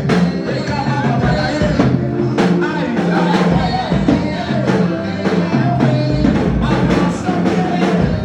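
Gospel band music with drums, a steady beat and singing.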